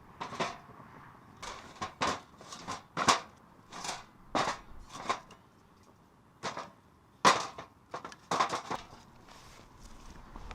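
A series of about a dozen sharp, irregularly spaced knocks or crunches, each dying away quickly.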